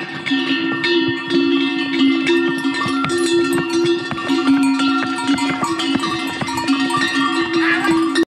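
Harness bells on a passing string of pack animals clanking and ringing steadily, several bells sounding at once with irregular clanks over the ringing.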